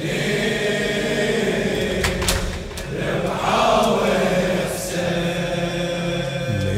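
A crowd of male mourners chanting a latmiyya refrain together in long, held notes, with a few sharp slaps from chest-beating.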